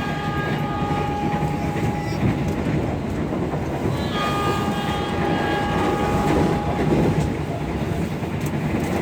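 Passenger train running with a steady rumble of wheels on rails. Twice a long high-pitched steady tone sounds over it for about three seconds: once at the start and again about four seconds in.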